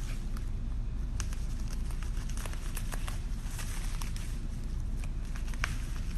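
Packing material and small parts being handled: irregular crinkling and light clicks and taps over a steady low background hum.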